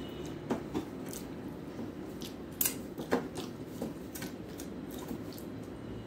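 A few scattered light clicks and taps as fingers work rice on a stainless-steel plate, over a steady low background hum.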